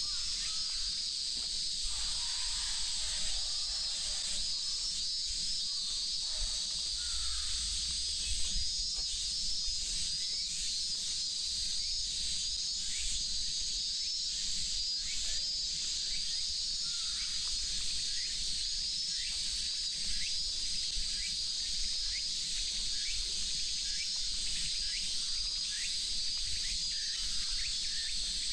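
A chorus of summer cicadas buzzing as a dense, steady high drone with a regular pulsing in it.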